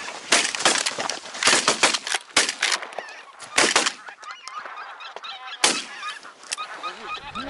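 A flock of geese honking, many overlapping calls throughout. Several loud, noisy rustling bursts fall in the first four seconds, and a single sharp crack comes near six seconds.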